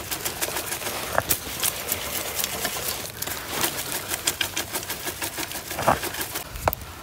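Soil and clods rattling and scraping in a hand-held metal trap-bedding sifter as it is shaken, sifting dirt over a buried foothold trap. It sounds as a quick, uneven run of clicks and rattles.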